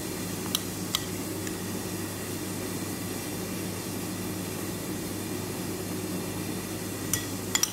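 Steady low mechanical hum with a few droning tones, and a few sharp clinks of a metal spoon against a baking dish: two about half a second apart near the start, and a quick cluster near the end.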